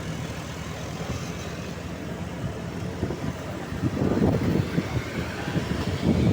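Heavy road vehicle running past with a noisy rumble, growing louder from about four seconds in; no horn sounds.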